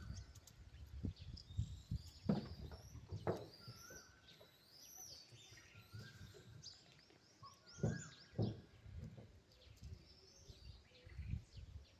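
Several small birds chirping, with many short notes that rise and fall, and a repeated short steady whistle. A few dull low thumps come about two, three and eight seconds in.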